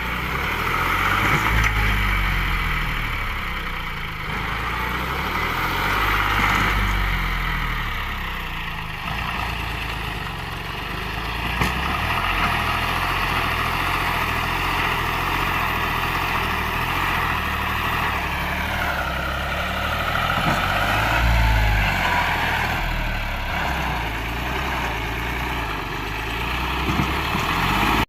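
John Deere 5103 tractor's three-cylinder diesel engine running steadily. About two-thirds of the way through, a higher tone dips in pitch and climbs back.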